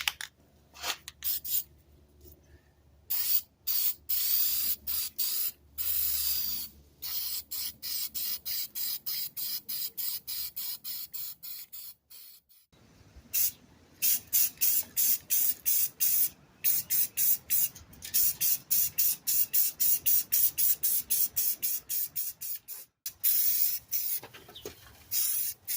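Aerosol spray-paint can sprayed in many short hissing bursts, a few each second, with a brief pause near the middle, as the toolbox tray is painted.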